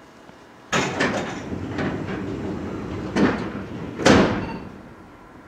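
Tokyu 8500 series train's sliding passenger doors closing: a sudden rush of noise and clatter, then two heavy thumps about three and four seconds in.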